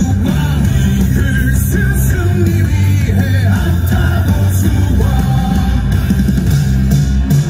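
Loud music with a heavy bass line and a singing voice, playing without a break.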